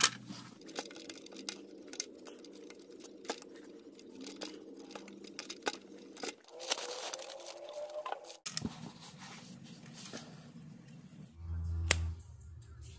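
Hands handling a plastic intake manifold under the hood: scattered light clicks, knocks and rustles of plastic parts, with a faint rising tone about seven seconds in.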